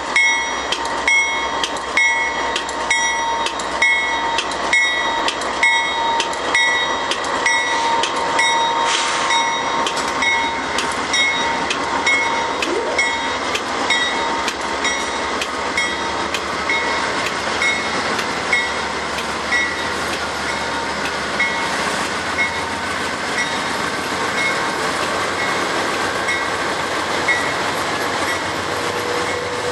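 Canadian Pacific GE AC4400CW diesel locomotives running as they lead a long intermodal train past, with the steady rumble of the train on the rails. A ringing strike repeats about twice a second and fades after the first half.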